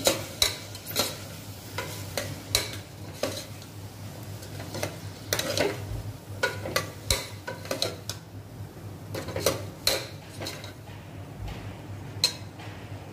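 A steel ladle stirring diced potatoes and peas in an aluminium pressure cooker, scraping and clinking against the pot's bottom and sides in irregular strokes, a few a second.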